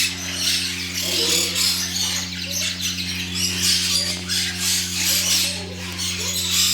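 Many small birds chirping and squawking at once in a dense, continuous chatter, over a steady low hum.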